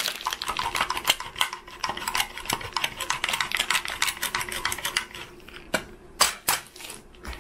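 Parmesan cheese being grated on a small hand grater: quick rasping strokes, several a second, which stop about five and a half seconds in, followed by a few separate knocks.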